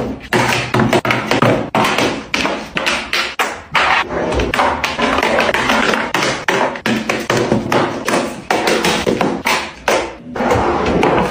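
Makeup palettes being set down one after another in a drawer: a quick, irregular run of taps and clacks, several a second, with a short lull near the end.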